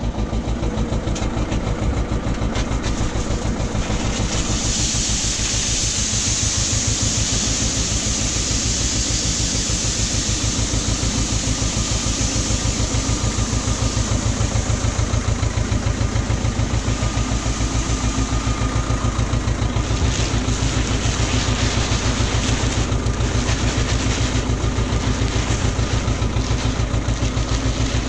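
A John Deere tractor's diesel engine running steadily, its firing beat even throughout. A steady hiss joins in about four seconds in.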